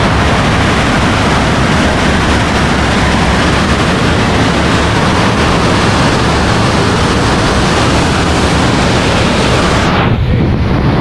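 Loud, steady rushing of water swirling around a walk-through water vortex tunnel, heard from inside the tunnel. The hiss thins out briefly near the end.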